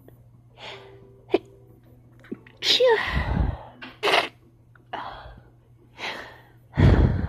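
People sneezing: a loud "achoo" about three seconds in, then short sharp sounds, then the loudest sneeze near the end with a heavy low thump.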